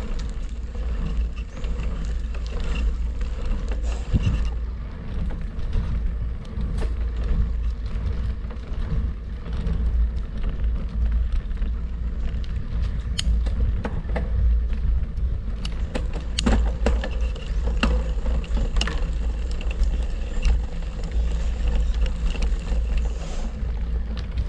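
Wind rumbling over the microphone of a moving bicycle, with scattered clicks and rattles from the bike.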